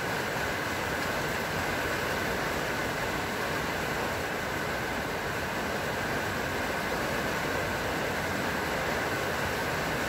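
Steady rain falling on trees and garden foliage, an even hiss that holds at one level throughout.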